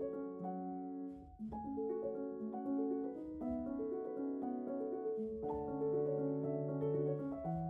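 Instrumental background music with held notes and chords that change every couple of seconds.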